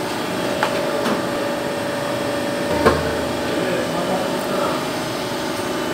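Hydraulic press's pump motor running with a steady hum. A few light clicks come through, and there is a sharper knock about three seconds in.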